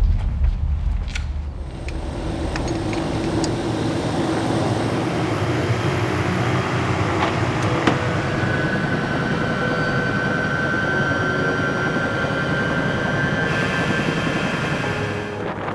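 Helicopter running: steady engine and rotor noise, with a thin steady whine in the middle stretch.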